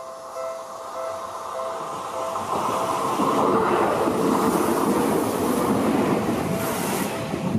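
Seibu 001 series "Laview" limited-express electric train passing close by, its rush of wheels on rails building about two and a half seconds in and staying loud. A level-crossing bell rings in even pulses about twice a second, drowned out as the train goes by and heard again near the end.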